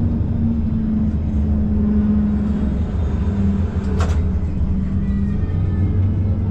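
GVB 13G Combino tram running, heard from inside the passenger cabin: a steady low rumble of wheels on rails with a wavering electric hum. There is a single sharp click about four seconds in.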